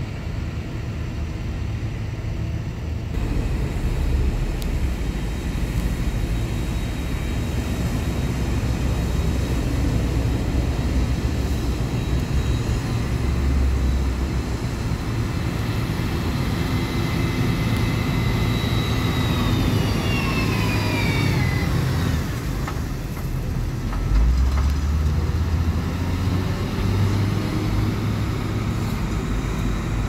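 Heavy diesel construction machinery running steadily, chiefly a motor grader working close by. About two thirds of the way through, a whine falls in pitch. A few seconds later the low engine rumble grows louder.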